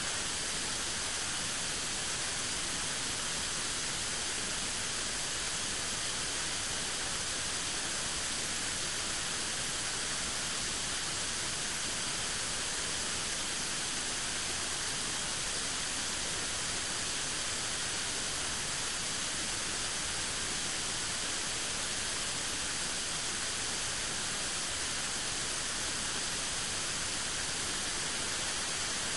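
Steady, even static hiss with no other sound in it, unchanging throughout.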